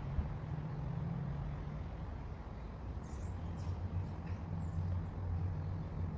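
Steady low engine hum, with a few faint bird chirps about halfway through.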